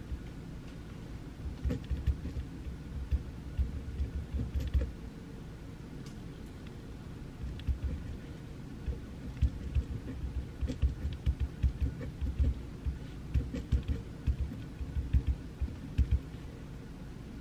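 Pencil writing on paper at a desk: irregular scratches and small taps, pausing for a couple of seconds about a third of the way in, over a steady low background hum.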